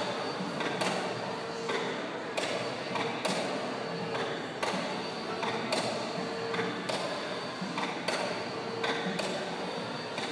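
Bungee trampoline in use: a thump about once a second at uneven spacing as the jumper lands and rebounds, with a short creak every couple of seconds, over a steady background hubbub.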